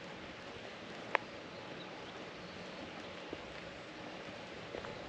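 Steady outdoor background hiss, with one sharp click about a second in and a few fainter ticks after it.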